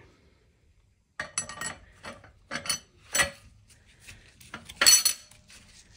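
Steel clutch-pack plates of a ZF 8HP55 automatic transmission clinking and clattering against each other and the clutch housing as they are fitted. A run of sharp metallic clicks with short ringing starts about a second in, the loudest about five seconds in.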